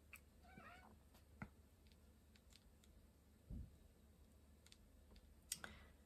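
Pet cat giving one short, faint wavering call at birds outside the window, about half a second in, which her owner calls barking. A few light clicks and a soft low thump from handling the card and thread follow.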